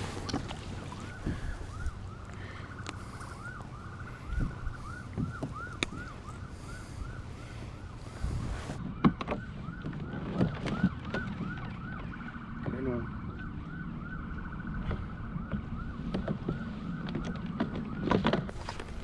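A turning gear mechanism whirring in a steady rhythm, its tone rising and falling about three times a second, with scattered light knocks.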